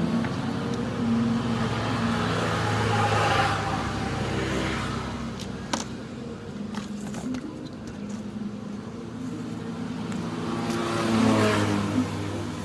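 Motor vehicle engines passing by, rising and fading twice, with a few sharp clicks in the middle.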